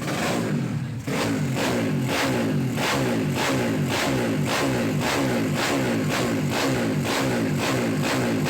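Rock music with electric guitar and a steady drum beat, which comes in about a second in.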